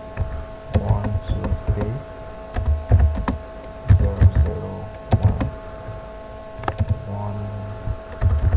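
Typing on a computer keyboard: key presses come in short irregular clusters with brief pauses between, each a click with a dull thud. A steady tone runs underneath.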